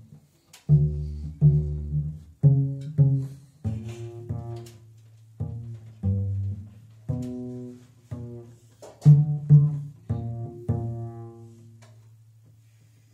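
Double bass played pizzicato: a slow line of about fifteen single plucked notes, each ringing and dying away before the next, the last fading out near the end.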